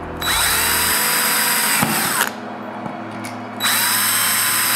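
Cordless drill with a thin twist bit drilling through a metal support plate into an aluminium door profile. It runs twice, each time for about two seconds, with the motor whine rising as it spins up and falling as it stops.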